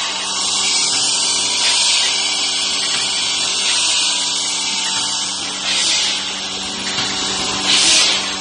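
Rotary stand-up pouch filling and sealing machine running: a steady mechanical hum under a continuous hiss, with two louder bursts of pneumatic air hiss about two seconds apart near the end.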